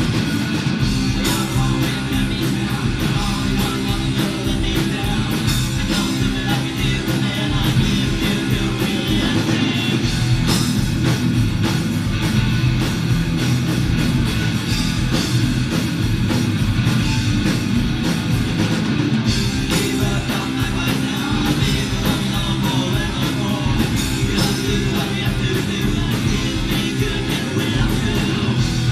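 A live rock band playing a song on electric guitars, bass guitar and a drum kit, steady and loud throughout.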